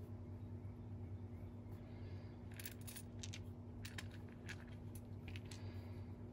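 Small dice and bones clicking lightly against each other as they are picked up and handled, a scatter of short sharp clicks starting about two and a half seconds in, over a steady low hum.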